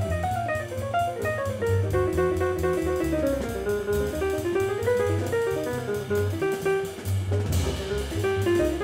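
Up-tempo acoustic jazz from a piano, trumpet, tenor sax, bass and drums quintet. A fast run of single notes winds up and down over double bass and a drum kit keeping time on the cymbals, with a cymbal crash near the end.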